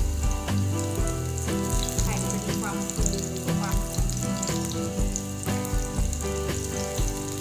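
Egg-and-enoki-mushroom omelette patties sizzling in shallow oil in a non-stick pan. Background music with a steady beat of about two strokes a second plays over the frying.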